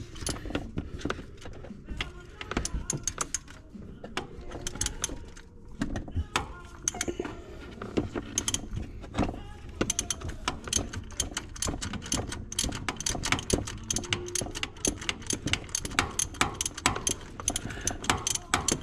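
Hand ratchet clicking as it backs out an engine's oil pressure sensor, in short strokes at first, then rapid, steady clicking from about halfway through.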